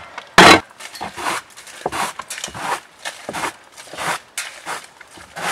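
A broom working frozen ice off a deck: one sharp chipping strike about half a second in, then a run of softer scraping sweeps, two or three a second.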